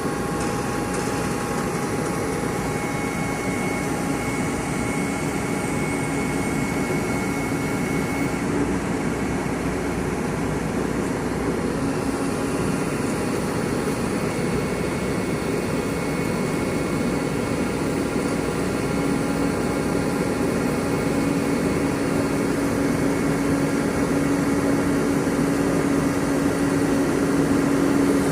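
Excavator's diesel engine running steadily with a steady whine, growing a little louder in the last several seconds.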